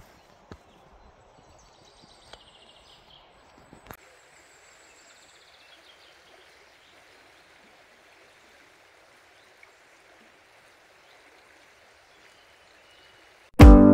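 Footsteps on a dirt path with faint bird chirps for the first four seconds, then the steady rush of a flowing river. Acoustic guitar music starts suddenly near the end.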